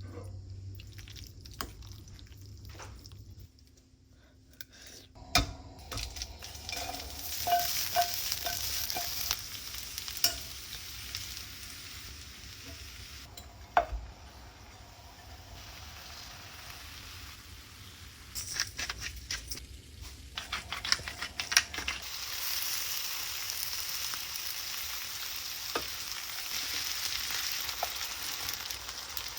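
Food frying and sizzling in a hot pan, with scattered clicks and knocks of a utensil stirring against it. The sizzle starts about five seconds in and becomes steadier and louder in the last third.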